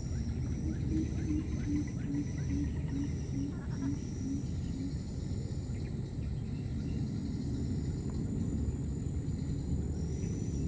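Outdoor ambience: a steady low rumble, with a run of about ten short, evenly spaced low notes in the first half and a faint pulsing high buzz.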